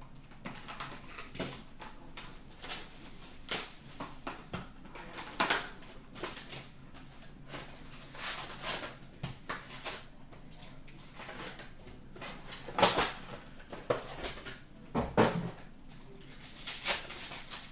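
Irregular rustling, crinkling and tapping of packaging as a box of Upper Deck SP Authentic hockey cards is opened by hand. A paper sheet is pulled out and foil-wrapped card packs are handled.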